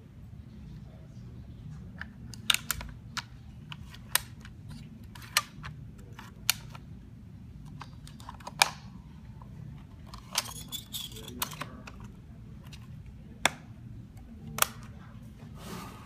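Sharp plastic clicks and snaps from a multi-function pencil box as its pop-up pencil stand is pressed down and its compartments are shut. There are about fifteen irregular clicks over a low steady hum.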